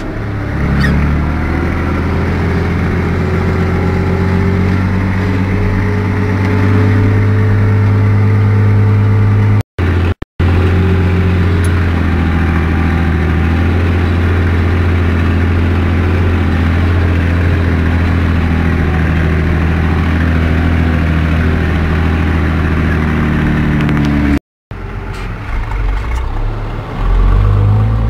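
Fiat 1180 DTH tractor's six-cylinder diesel engine running steadily while it pushes a front-loader V-plow through snow, heard from the cab. The sound cuts out briefly twice, and the engine gets louder and less even near the end.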